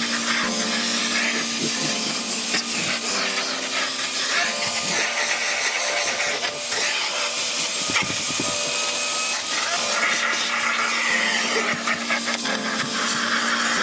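Vacuum cleaner running steadily, its crevice nozzle sucking and scraping over carpet.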